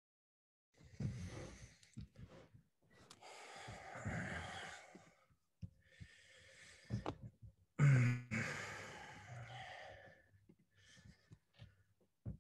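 A person's breathy sighs and exhalations: four long breaths with a few short ones between, one near the eight-second mark with voice in it, sliding down in pitch.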